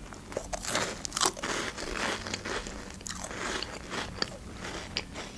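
A crisp sandwich cracker with cheese filling being bitten and chewed close to the microphone: many short crunches and crackles, one after another.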